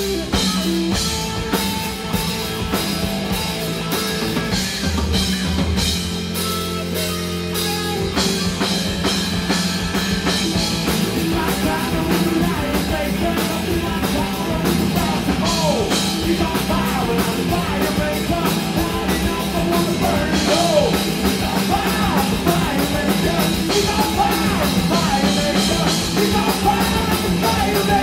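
Live amplified rock band playing: electric guitars, bass guitar and drum kit, with a singer's voice over the second half.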